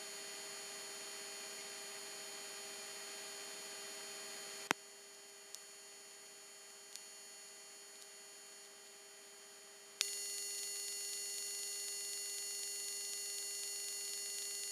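Steady electrical hum with several fixed high whining tones on the tanker's cabin and intercom audio. After a sharp click about five seconds in it drops quieter, with a couple of faint ticks. It comes back louder, with a sharp click, about ten seconds in.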